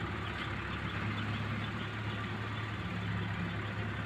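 Hydra pick-and-carry crane's diesel engine running steadily with a low, even hum while it holds a steel truss frame on its hook.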